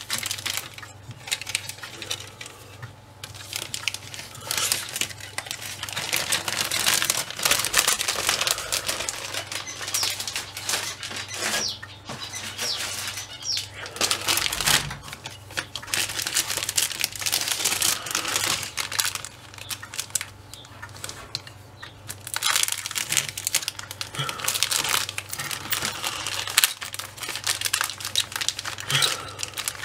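Plastic packaging crinkling and rustling as plastic model-kit sprues are handled and turned over close to the microphone, with uneven crackles throughout.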